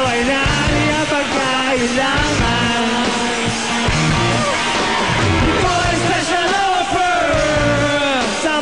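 A rock band playing a rap-rock song performed live, with a voice singing a melodic line over a steady beat.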